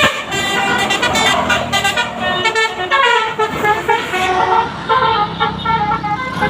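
Bus basuri horn, a multi-tone musical air horn, playing a quick changing tune of several notes at a time, with a bus engine running underneath.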